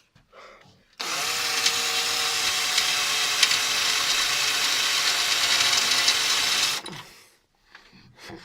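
Electric drill spinning up and drilling steadily for about six seconds, then stopping, as it drills out a snapped-off bolt.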